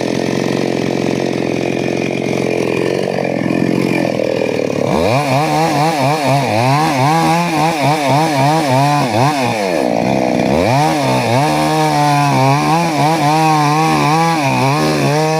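Two-stroke chainsaw running at speed and cutting wood. The engine pitch wavers throughout and dips sharply twice, about five and ten seconds in, before picking back up.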